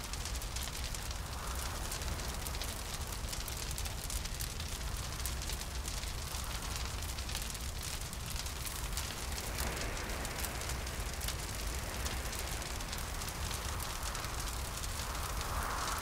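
Fire crackling steadily over a low rumble, with hollow wind swelling and fading every few seconds.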